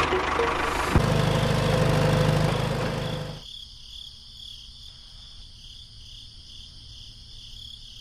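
A motor running loudly with a steady low hum, which cuts off about three and a half seconds in. This leaves insects trilling: a steady, high-pitched, pulsing sound.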